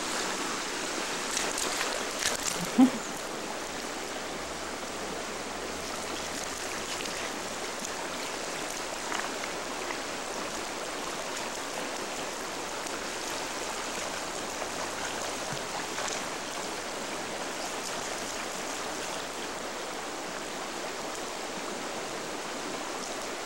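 A river flowing steadily over rocks, with a single sharp knock about three seconds in.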